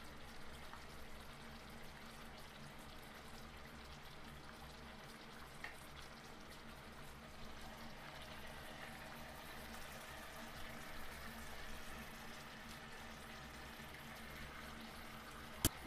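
Crab congee simmering and bubbling faintly in a stainless steel pot as a wooden spoon stirs it, over a steady low hum. A single sharp click comes near the end.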